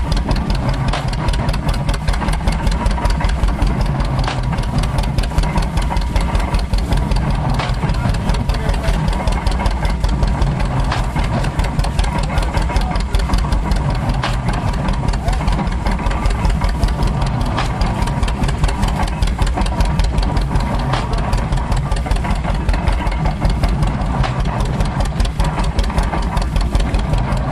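Antique tractor engine running steadily under load as it belt-drives a stationary straw baler, a fast, even chugging beat with no change in pace.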